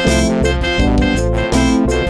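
Background music: keyboard-led instrumental with a steady beat.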